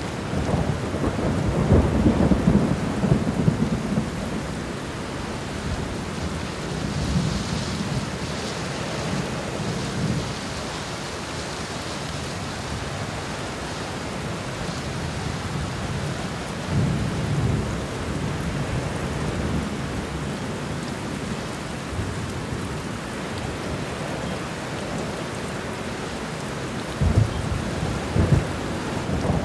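Thunderstorm sound effect: steady rain hiss with rolling thunder rumbles, heaviest in the first few seconds and with a few sharper cracks near the end.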